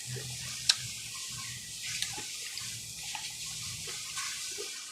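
Close-miked wet mouth sounds of eating: chewing and lip smacking, with a sharp click about a second in.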